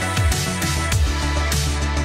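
Background music with a steady beat: sustained synth tones over low drum hits that drop in pitch, about two a second.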